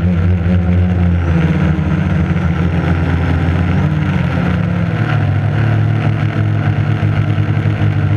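Quadcopter motors and propellers buzzing, close to the onboard camera, with the pitch shifting as the throttle changes, about a second in and again about five seconds in.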